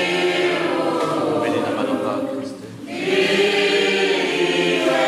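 Church choir singing a hymn in two long phrases, with a short break between them about two and a half seconds in.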